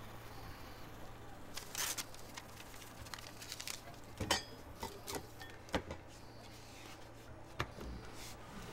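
Scattered light clicks and clatters of hands working a machine and its controls, about ten sharp knocks, the loudest a little past four seconds, over a low steady hum.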